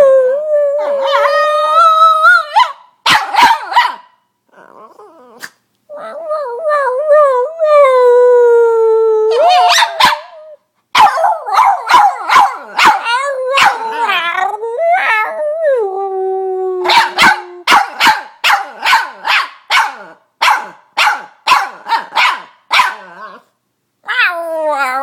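Boston Terrier howling and squealing in long, wavering whines, broken by short sharp barks. In the latter part comes a run of quick barks, about two a second.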